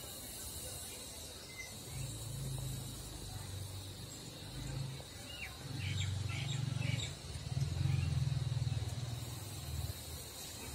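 Outdoor ambience: a few short bird chirps about halfway through, over a steady high insect drone and a low rumble that grows louder in the second half.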